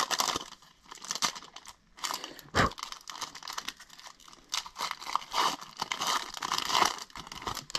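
Foil trading-card pack wrapper being crinkled and torn open by hand: irregular crackling and tearing, with one sharper, louder crackle about two and a half seconds in.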